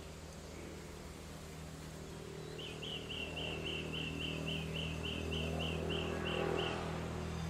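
A bird calling a rapid series of about a dozen short, identical high notes, about three a second, starting a little over two seconds in. Underneath, a low motor hum grows steadily louder.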